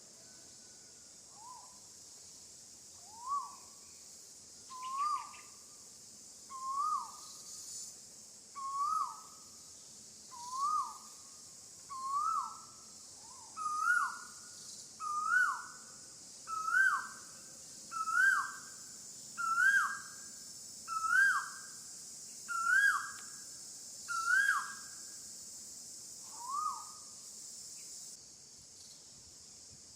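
A bird calling a long series of whistled notes, one about every second and a half. Each note sweeps up and then falls, and the notes grow louder and higher in pitch through the series before one last softer note. A steady high hiss of insects runs underneath.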